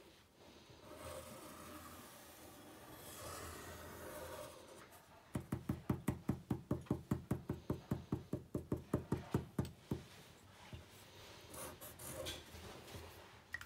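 Felt-tip pen drawing on paper laid on a table: faint scratching strokes at first, then about five seconds of rapid, even taps, some five a second, as the pen stipples dots onto the paper.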